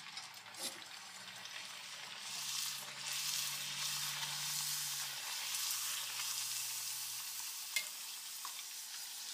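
A small semolina puri frying in a pan of hot oil: a steady sizzle that swells about two seconds in, with a single light click near the end.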